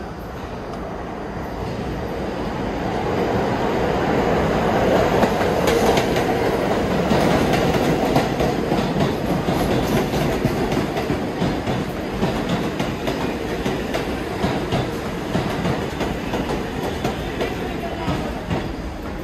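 New York City subway train passing on the track, its wheels clacking over rail joints in a steady rhythm. The rumble grows over the first few seconds, stays loud through the middle and eases off slowly.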